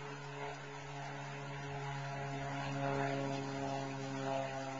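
Cessna AgTruck crop duster's piston engine and propeller droning steadily as it flies low on a spraying pass, growing louder to a peak about three seconds in as it comes overhead.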